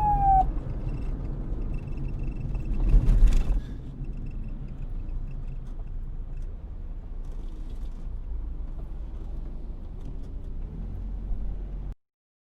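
Police siren ending a falling wail, cutting off about half a second in, followed by a low steady rumble with a brief louder swell of noise around three seconds in.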